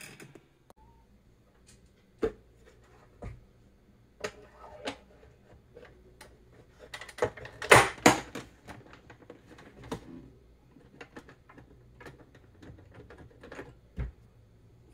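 Plastic clicks and knocks of an instrument cluster's clear lens being handled and fitted onto the cluster housing, with the loudest run of clatter about eight seconds in.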